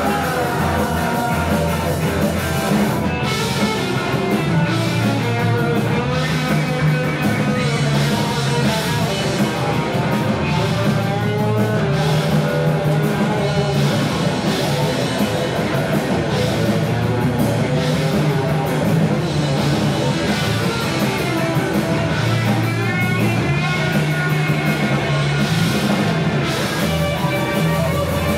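Live rock band playing an instrumental section: electric guitar, bass guitar and drum kit, loud and continuous.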